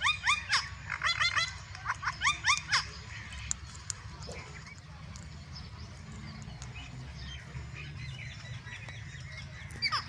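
Indian ringneck parakeets calling: a fast series of short, rising screeches in clusters for about the first three seconds, then they fall quiet over a low steady rumble.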